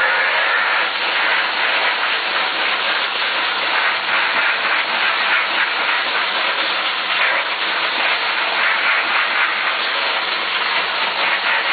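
Vacuum cleaner running steadily, its nozzle drawn across a cloth to suck up powder.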